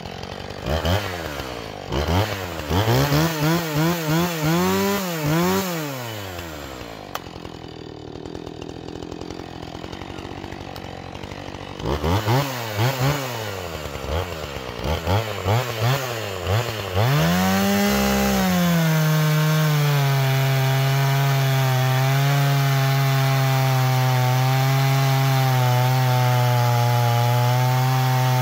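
Husqvarna 445 50cc two-stroke chainsaw revved in a series of quick throttle blips, dropping back to a lower idle between them. About two-thirds of the way through it goes to full throttle and holds a loud, steady, somewhat lower pitch as it cuts into the log with a stock chain.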